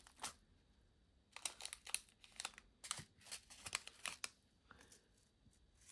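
Faint crinkling of small plastic bags and light clicks as diamond painting drills are handled, in short scattered clusters that are busiest through the middle.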